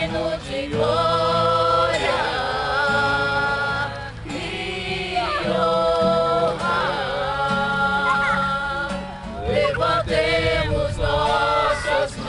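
A group of voices singing a slow hymn in long held notes, phrase by phrase, accompanied by an acoustic guitar.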